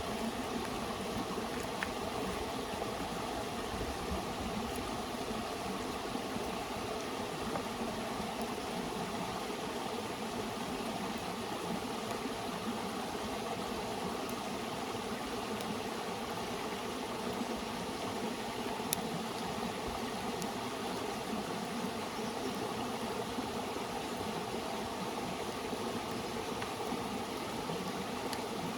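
Steady rushing of flowing river water, with a few faint sharp clicks.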